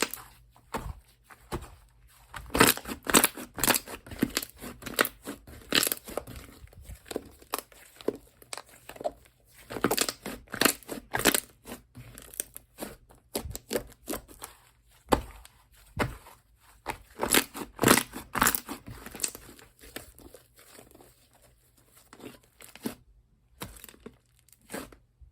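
Slime being squeezed, stretched and pressed by hand, giving quick irregular sticky pops and crackles in clusters, with a quieter stretch near the end.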